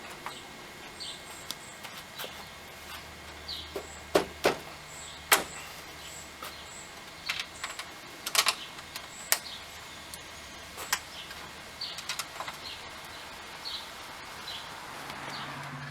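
Scattered sharp clicks and taps of the grille's small mounting bolts being handled and fitted by hand, a few of them loud. Small birds chirp faintly in the background.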